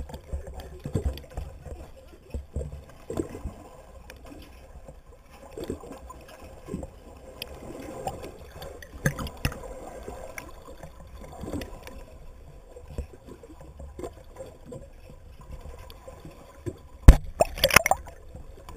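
Muffled underwater sound picked up through a submerged camera housing: irregular gurgles, bubbles and soft knocks of water moving past it, with one sharp loud knock near the end.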